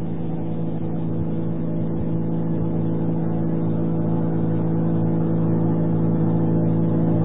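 Steady low hum with a faint hiss under it, slowly getting louder: background noise of an old recording in the pause between recited verses.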